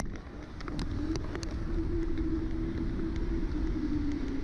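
Electric bike ridden fast, heard from a camera mounted on the bike: rumble of wind and road on the microphone, with a steady hum that rises a little and then eases, and a few light clicks.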